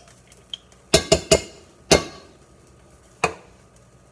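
Cookware clattering in the kitchen: a pan and metal utensils knocking, with three sharp knocks close together about a second in, another about two seconds in and a last one past three seconds.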